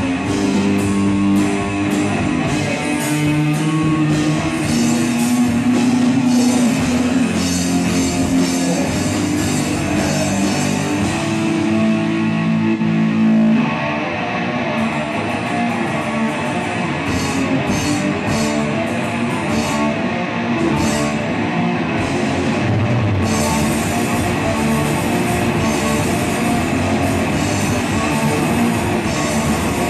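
Punk rock band playing live: distorted electric guitar, bass guitar and drum kit, loud and continuous, with the part changing about halfway through.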